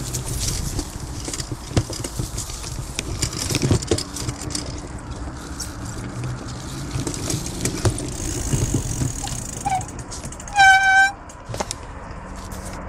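Bicycle being ridden over pavement, with scattered rattling and clicking over a steady low rumble. Near the end, a loud high-pitched beep lasts about half a second.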